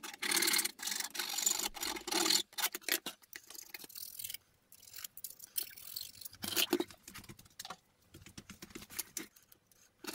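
A small handheld rotary tool buzzing against a small metal disc for about two and a half seconds. After that come scattered light clicks and taps as the part, paper and hand tools are handled on the bench.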